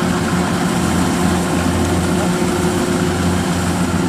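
Kubota DC93 combine harvester's diesel engine running steadily under load as the machine cuts and threshes rice, a constant low hum over mechanical noise.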